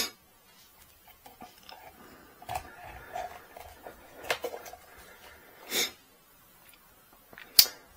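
Handling of a revolver in a leather belt holster: quiet leather rubbing and small clicks, with the snap fastener on the holster flap clicking shut about halfway through. A short breath is heard, and a sharp click near the end is the loudest sound.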